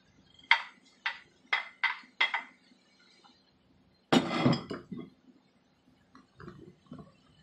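Five quick metallic clinks from a metal plate as chopped onions are knocked off it into a pot of boiling soup, then a louder clatter about four seconds in and a few soft knocks.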